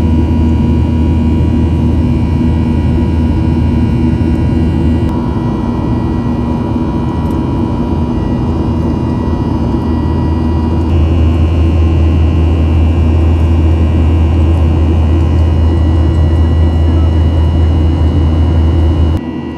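Cabin noise inside a Boeing 737-800 in flight: the steady drone of its CFM56 jet engines and airflow, a strong low hum with a few steady whining tones. The sound shifts abruptly a few times, at about five seconds, about eleven seconds and just before the end.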